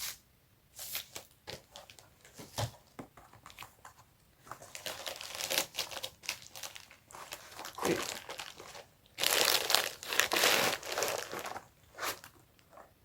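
Packaging of a pull-up bar being handled and opened: crinkling and tearing in irregular bursts, loudest and most continuous about two-thirds of the way through.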